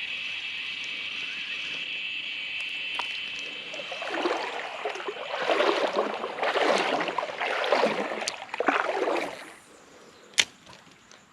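Insects buzzing steadily in a high band, then from about four seconds in, creek water sloshing and splashing in irregular surges for about five seconds, as of someone wading through it. A single sharp click comes near the end.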